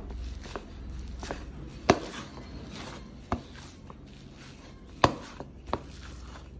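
Wooden spoon pressing and breaking up cooked rice in a bowl: a soft rustle of the rice with about seven irregular sharp knocks of the spoon against the bowl, the loudest about two seconds in and again about five seconds in.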